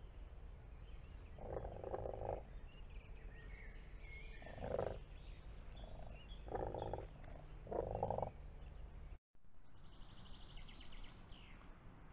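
Frogs croaking from the pond in four rattling bursts over the first eight seconds, with songbirds singing faintly in the background. After a short dropout about nine seconds in, only the birdsong remains.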